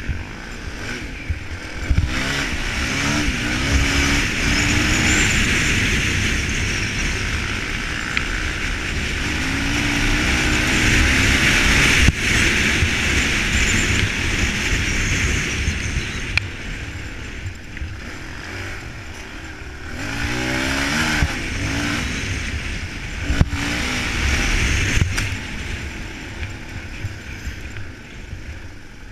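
Suzuki DR-Z400E single-cylinder four-stroke dirt bike engine under way on a trail, its pitch climbing and dropping repeatedly as the rider accelerates and shifts, with heavy wind rush over the microphone. A couple of sharp knocks, about two seconds in and near the middle.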